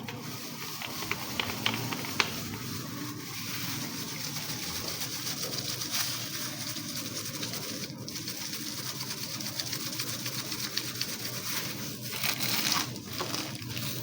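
Continuous rustling and crinkling handling noise, with a few sharp clicks in the first couple of seconds.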